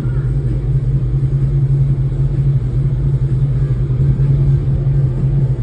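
2006 Dodge Charger's Hemi V8 idling steadily, running clean with zero misfires on all eight cylinders.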